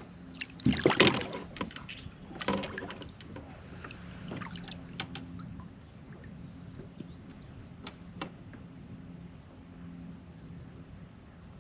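Water splashing as a small flathead catfish is pulled thrashing out of the water beside a kayak, with a second, smaller splash a moment later, then a few light knocks against the hull and tackle over a faint low hum.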